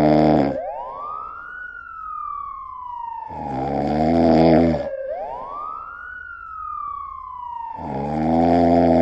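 A person snoring loudly: three long, rough snores about four and a half seconds apart. Between them a siren wails, rising quickly and falling slowly in step with the snores.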